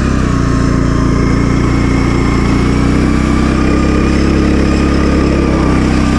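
Engine of an engine-swapped Poulan riding lawn mower running steadily as the mower is driven.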